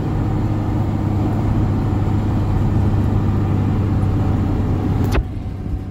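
1994 Dodge Ram pickup driving under power, its engine and road noise heard from inside the cab as a steady drone. About five seconds in there is a sharp click, after which the drone drops off.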